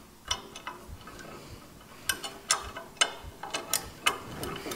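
Small metal parts of a drum brake assembly (return springs and shoe hardware) clicking and clinking as they are handled and fitted to a brake shoe by hand. Irregular sharp clicks, a few at first, then more frequent from about two seconds in.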